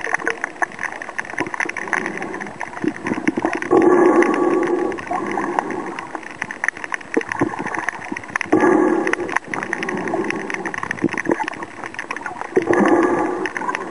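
Water heard through a camera held underwater: a steady crackling hiss with three louder gurgling surges about four and a half seconds apart.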